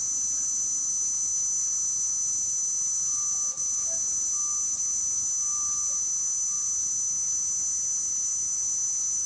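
Steady high-pitched electrical whine made of several close tones, with a fainter lower tone that swells a few times in the middle: background electrical noise on the recording.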